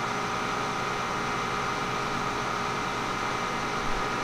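Steady mechanical hum with several constant whining tones, with a light click near the end.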